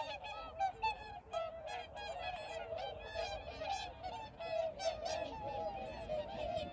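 A large flock of whooper swans calling together: a dense, unbroken chorus of many overlapping trumpeting honks.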